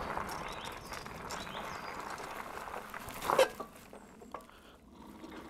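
Engwe M20 fat-tyre e-bike rolling slowly over rough ground. About three seconds in there is a short knock as the bike catches the trail-entrance barrier.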